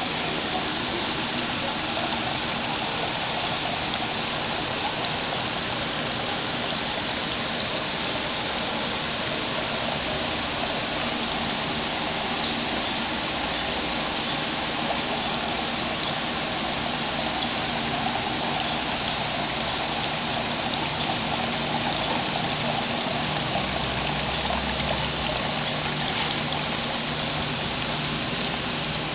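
Water falling and trickling steadily down a small faux tree-stump garden fountain.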